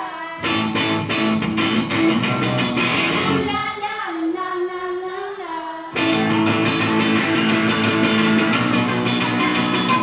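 Live rock performance: a woman sings over a strummed electric guitar from a V-shaped guitar. About three and a half seconds in the strumming drops back under a held vocal line, then at about six seconds the guitar comes back in suddenly with loud, hard-strummed chords.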